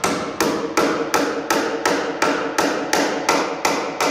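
Hammer blows driving a sugar maple leg's tapered round tenon into the mortise of a pine Windsor chair seat: steady strikes about three a second, each with a short ringing tail, until the joint is tight.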